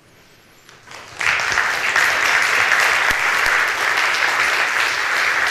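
Audience applauding, starting suddenly about a second in after a brief quiet and continuing steadily.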